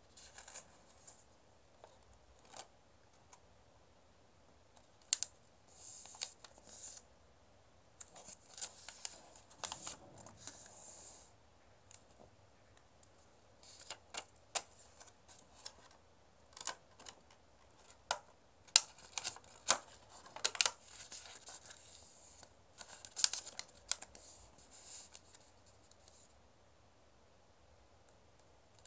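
A square sheet of origami paper being folded and creased by hand on a tabletop: scattered sharp taps and short crisp rustles of the paper as it is handled, folded over and pressed flat, busiest in the middle.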